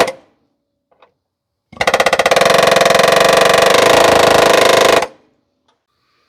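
Pneumatic air hammer firing in rapid, steady hammering: the tail of one short burst at the very start, then one continuous burst of about three seconds starting about two seconds in, driven against the old rusted exhaust hanger piece to break it out.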